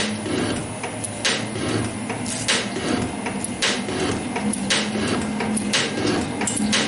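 Metal shaper running at about sixty strokes a minute, taking a cut with a carbide tool: a sharp scraping burst about once a second with each stroke of the ram, over a steady machine hum.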